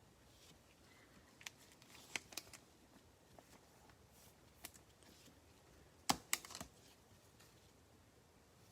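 Panini NBA Hoops trading cards being handled and sorted by hand: faint scattered clicks and slides of card stock, with a louder cluster of snaps about six seconds in.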